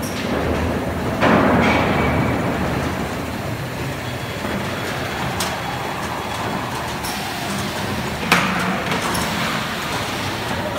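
Automatic net-weight bucket-filling line for lubricant oil running, with a steady mechanical rumble and rattle as the buckets are moved along the roller conveyor. A louder rushing surge comes about a second in and fades over a few seconds, light clicks follow, and a sharp clack comes near the end.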